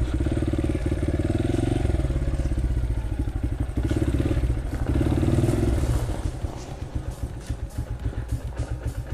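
Small off-road vehicle engine running under throttle, its pitch rising and falling, then easing off about six seconds in to a quieter, slower pulsing run.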